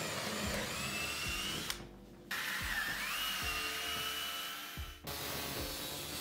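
Cordless drill boring into a wooden block, its motor whine rising in pitch, pausing briefly about two seconds in and starting again. Near the end, an angle grinder cutting steel rod. Background music with a steady beat runs underneath.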